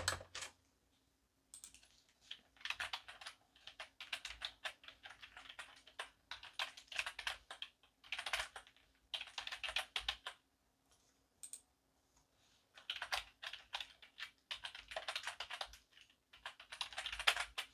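Typing on a computer keyboard in runs of quick keystrokes lasting a few seconds each, with short pauses between them. A single sharp knock comes at the very start.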